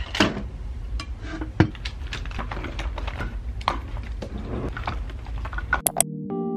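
Small hard objects clicking, tapping and clattering on a desk as makeup is handled and packed into a cosmetic bag, at an uneven pace. Near the end it cuts off suddenly to soft music with long held tones.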